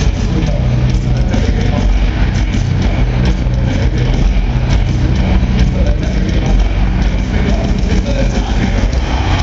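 Heavy metal band playing live at concert volume, heard from within the crowd: a dense, bass-heavy wash of distorted guitars with a steady pounding of drums.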